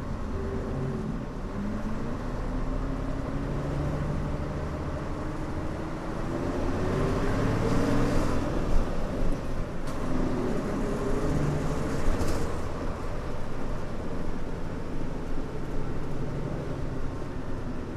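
Mitsubishi Fuso Aerostar city bus's 6D24 diesel engine pulling under load, its pitch climbing steadily for several seconds. It drops at a gear change about ten seconds in, climbs again, then levels off, over steady road noise.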